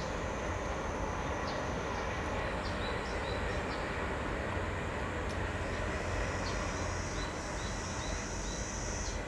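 Steady outdoor background noise with a low rumble, and faint short high chirps now and then.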